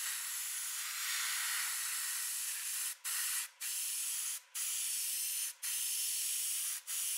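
Airbrush hissing as it sprays paint onto a model, with about five brief breaks in the second half where the trigger is let go, building up an uneven, mottled base coat.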